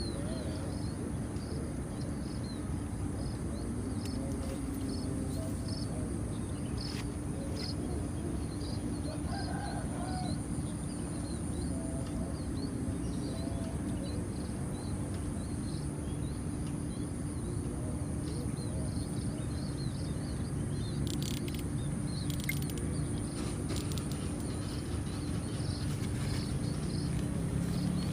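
Rural outdoor ambience: small birds chirp over and over, with chickens in the background, over a steady high hiss and a low hum.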